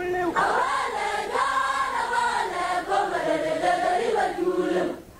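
A large group of voices singing together in chorus. The group comes in about half a second in, taking over from a single voice, and fades just before the end.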